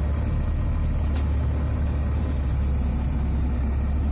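Engine and road noise of a moving vehicle heard from inside its cab: a steady, loud low drone.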